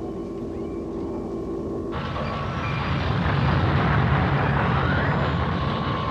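Animated sci-fi sound effect of the space battleship Argo flying past. A rushing engine noise starts abruptly about two seconds in, swells, then fades. Before it there is a steady electronic hum of the ship's bridge.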